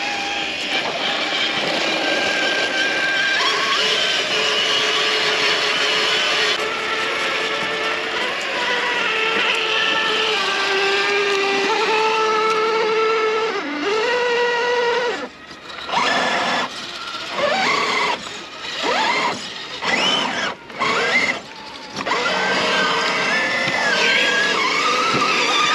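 Traxxas TRX-4 RC crawler's electric motor and geared drivetrain whining, the pitch rising and falling with the throttle. In the middle the throttle is blipped on and off, so the whine comes in short bursts before running steadily again.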